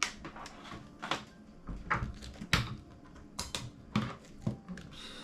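Irregular plastic clicks and knocks from handling a camcorder and its AC power supply.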